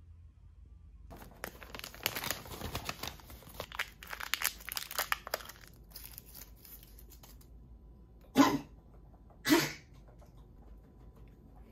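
Plastic and foil packaging of a COVID-19 rapid self-test kit being torn open and crinkled, a dense crackle lasting several seconds. Near the end come two short loud bursts about a second apart.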